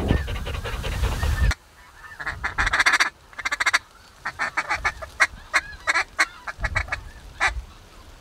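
Wind rumbling on the microphone for about a second and a half, cutting off suddenly. Then a flock of snow geese calling: many short, high honks, crowded together at first and then more spaced out.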